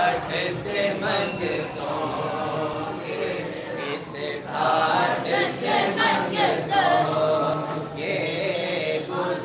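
A naat sung unaccompanied by male voices, with several voices chanting together and carried through a PA system. There are no instruments.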